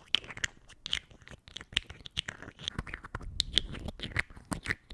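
Close-miked ASMR trigger sounds: quick, irregular crisp clicks and scratches, several a second, with a soft low rumble partway through.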